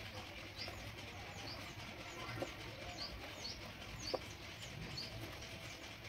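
Faint short chirps of small birds, each a quick high falling note, repeated irregularly, with a couple of soft ticks.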